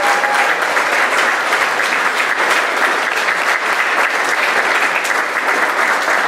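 Congregation applauding steadily: many hands clapping together.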